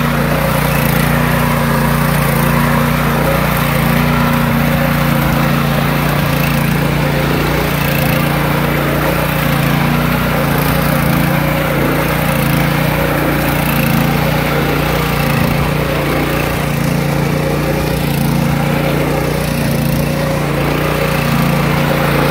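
Mini tiller engine running loud and steady while ploughing a paddy field.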